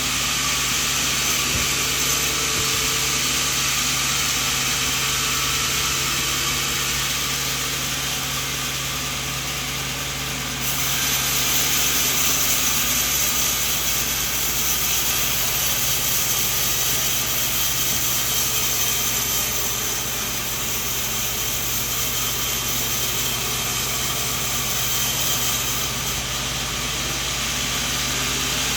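Band sawmill running steadily, cutting coconut wood, with a low hum under a loud hiss. About ten seconds in the sound gets louder and brighter, easing back again near the end.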